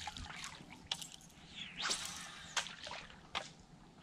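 Faint dripping and light splashing of water, with scattered small clicks and a short swish about two seconds in.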